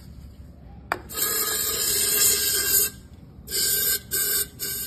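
WD-40 aerosol can spraying lubricant through its straw into a gate motor's gear housing. A click about a second in, then one long hiss of about two seconds, then three short bursts near the end.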